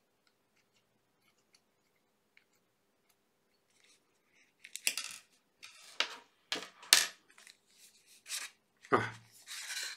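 A few faint ticks from a small hex key on the casing screws of a Microsoft Azure Kinect DK. Then, from about halfway, a run of short scraping and rubbing sounds as the white plastic outer cover is worked loose from the device's metal body, with a heavier bump near the end.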